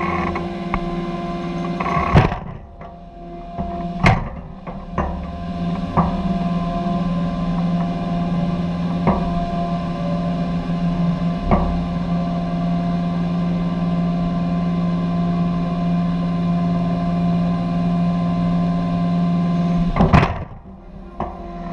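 A steady, loud low machine drone with sharp knocks every two or three seconds; the level dips briefly twice, near the start and near the end.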